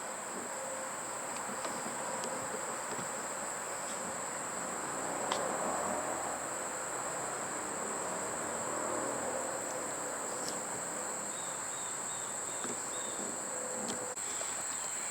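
Steady high-pitched insect chorus, a continuous trill that does not break or change.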